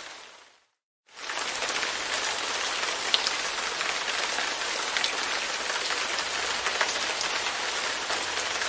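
Light rain pattering on a window pane, a steady hiss with individual drops ticking. It fades out, drops to silence for a moment about a second in, then fades back in.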